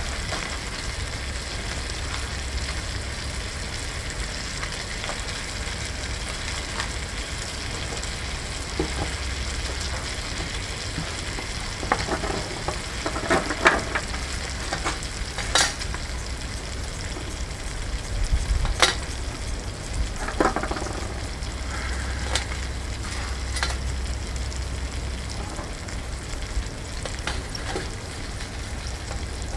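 Diced bacon sizzling in a small frying pan over a wood-burning camp stove: a steady frying hiss with scattered sharp pops.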